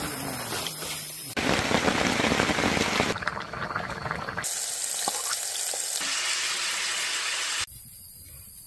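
A quick string of short camp-sound clips, each cut off abruptly. They are steady hissing and bubbling, among them a pot of rice boiling over a wood fire. A quieter campfire burns near the end.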